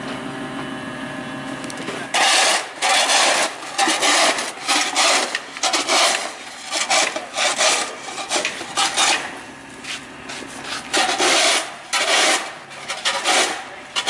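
A forklift engine runs steadily for about the first two seconds. Then a snow shovel scrapes through snow on pavement in repeated strokes, about one a second, with a short pause about ten seconds in.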